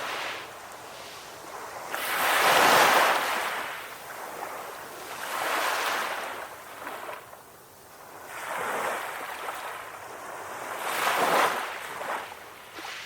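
Sea waves breaking and washing in, one after another, each surge rising and fading over a second or two, the strongest about two to three seconds in and again near eleven seconds.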